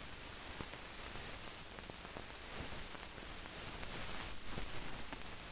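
Faint, steady hiss of an old 16mm film soundtrack between scenes, with a few scattered soft clicks and pops.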